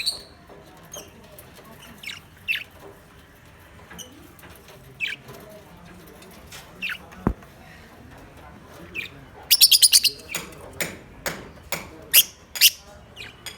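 Pet lovebirds chirping: short, sharp falling chirps every second or two, with a quick run of rapid chirps about ten seconds in. A single sharp click a little after seven seconds.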